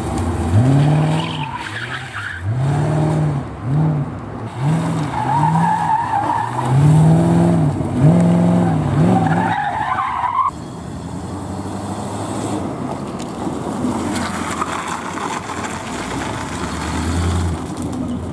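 Porsche 928's V8 engine revving up and falling back again and again in quick blips as the car is thrown through tight manoeuvres, with tyre squeal. About ten seconds in the sound cuts abruptly to a quieter, steadier car engine.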